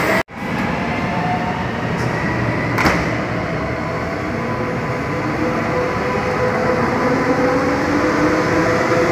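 Nuremberg U-Bahn train pulling out and gathering speed in an underground station: a steady rumble of wheels on rail with a faint motor whine, and a single knock about three seconds in.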